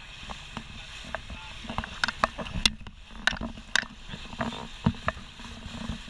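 Motorboat underway across open water: a steady low drone and hiss, broken by a dozen or so sharp, irregular knocks and slaps.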